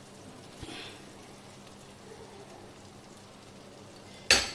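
Faint, steady sizzling hiss of hot food in a cooking pan, with one sharp utensil clank near the end.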